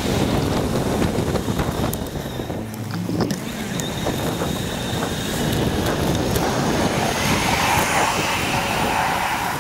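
Wind rumbling on the microphone of a camera on a moving bicycle, with road noise. From about two-thirds of the way in, a tram running close alongside adds a rising whine that fades near the end.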